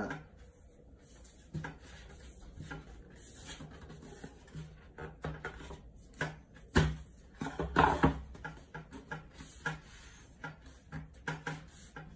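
Two wooden boards being pushed together along a glued biscuit joint and shifted on a tabletop: scattered light knocks and scrapes of wood, with two louder knocks a little past the middle.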